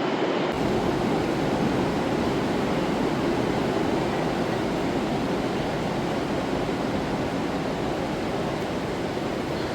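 Steady rushing noise with no distinct events, joined by a low rumble about half a second in.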